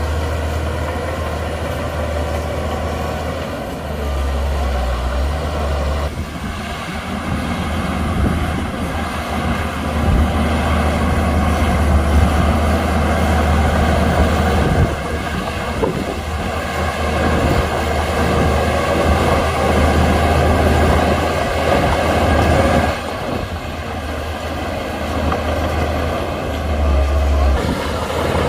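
Shantui DH17C2 crawler bulldozer's diesel engine running steadily under load, with clatter and rumble from the tracks and the work.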